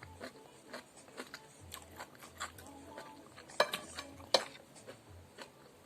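Eating utensils clicking and tapping against dishes during a meal, with two sharper, louder clacks a little past the middle.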